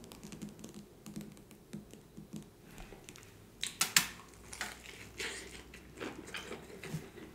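Eating sounds: a bite into a syrup-covered salmon croquette about four seconds in, then chewing with small wet mouth clicks.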